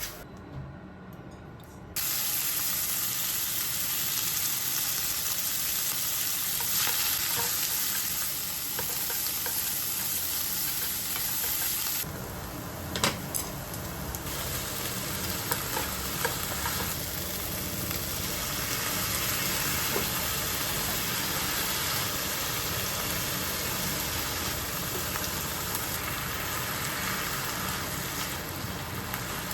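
Food sizzling in a hot pan: a steady sizzle that starts abruptly about two seconds in, with a short dip and a few light clicks, as of utensils, around the middle.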